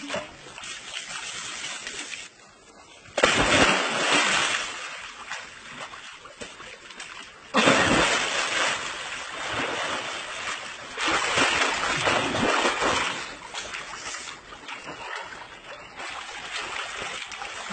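Water splashing, pouring and sloshing in a small pool, with loud spells of splashing that start suddenly about three seconds in and again near the middle.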